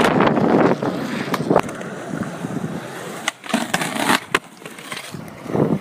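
Skateboard wheels rolling loudly over rough concrete, then several sharp board clacks about halfway through as the board pops onto a concrete ledge and its trucks grind along it. The rolling picks up again near the end.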